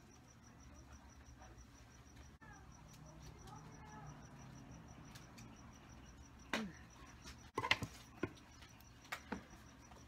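Quiet handling noises: a few short knocks and clicks in the second half as a hand mirror and a spray can are set down and picked up, over a faint high-pitched pulsing tone.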